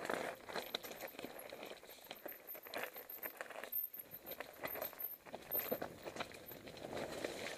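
Mountain bike rattling down a rough, stony trail: an irregular stream of clicks and knocks from the tyres striking stones and the bike's chain and frame shaking, briefly easing off about four seconds in.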